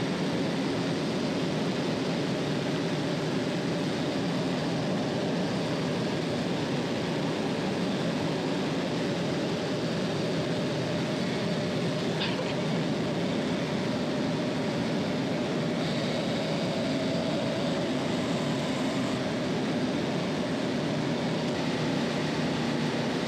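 Steady, even machinery drone of a running parallel refrigeration compressor rack.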